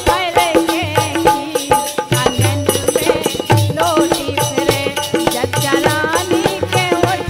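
Instrumental break in a Bundeli folk song (sohar): a wavering melody line over a steady hand-drum beat and rattling percussion.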